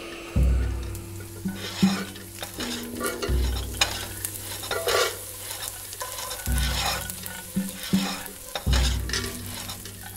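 A wooden spatula stirring and scraping around a white ceramic frying pan in quick, uneven strokes. Four deep low thuds come every two to three seconds underneath.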